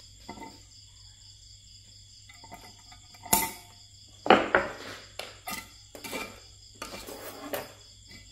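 Sharp metallic clicks and clinks from a small hand cutting tool snipping copper wire and being handled on concrete, about eight in the second half, the loudest two near the middle. Steady pulsing cricket chirring runs underneath.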